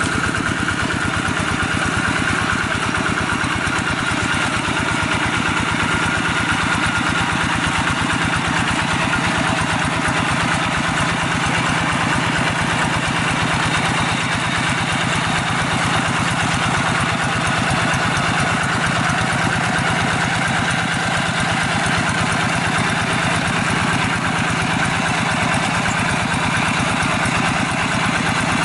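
Two-wheel hand tractor's single-cylinder diesel engine running steadily with a fast, even beat as it pulls cage wheels through the mud of a flooded rice paddy.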